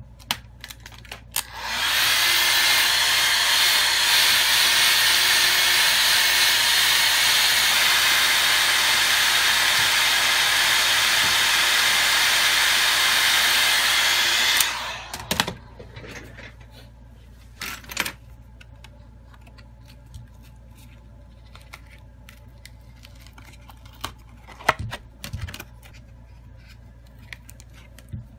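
A hot-air blower switches on about a second and a half in, runs steadily for about thirteen seconds, then cuts off. It is warming the phone to soften the display's adhesive. Afterwards there are a few sharp clicks and taps as the phone and a prying tool are handled.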